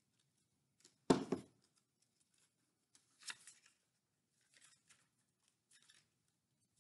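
Construction paper rustling and crinkling as paper hearts are handled and pressed onto a folded paper strip, with a sharp knock about a second in, as the glue stick is put down on the tabletop, and a smaller knock a couple of seconds later.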